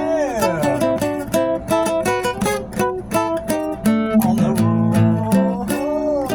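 Band music led by guitar, with a quick steady beat and a bass line underneath; a few notes slide down in pitch just after the start and bend up and down near the end.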